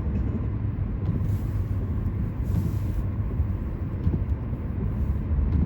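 Steady low rumble of a car driving, heard from inside the cabin: engine and tyre noise on a snowy road.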